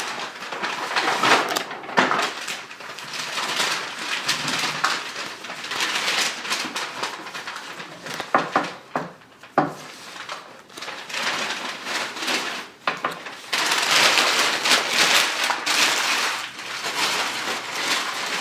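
Foil Pokémon booster pack wrapper crinkling and being torn open, with sharp clicks and rustles of packaging and cards being handled. The rustle thickens into a longer continuous crinkle about three-quarters of the way through.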